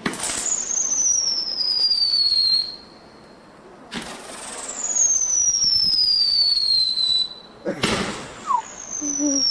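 Whistling fireworks going off three times, about four seconds apart: each starts suddenly and gives a loud, shrill whistle that falls in pitch over two to three seconds.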